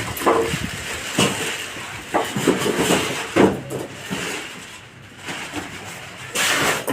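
Irregular knocks and rustling from packaging being handled while a washing machine is unboxed, with a longer rustle near the end.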